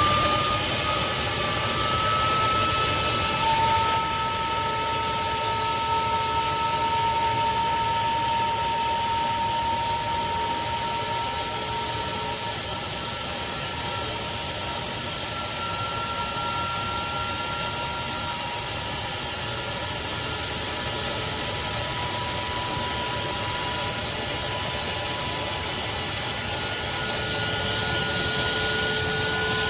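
Craftsman 16-gallon wet/dry shop vacuum running steadily: a rush of air with a motor whine whose pitch drifts slightly up and down.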